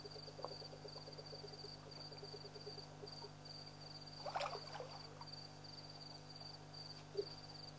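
Crickets trilling at night in quick even pulses at a steady high pitch, over a steady low hum. A brief louder noise comes about halfway through.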